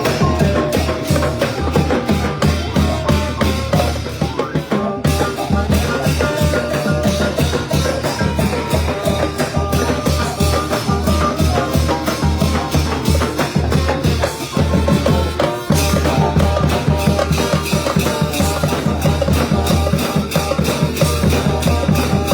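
Thai brass band (trae wong) playing a lively tune, with drums and percussion keeping a fast, steady beat. The music dips for a moment about five seconds in.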